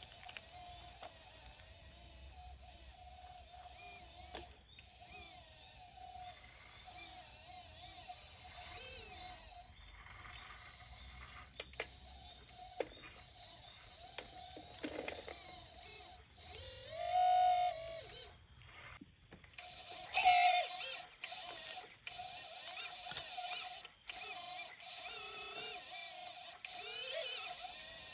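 Hydraulic pump and electric motors of a 1/14 scale hydraulic RC excavator running with a steady high whine, its pitch wavering and briefly rising and falling as the machine works, with a few small mechanical clicks.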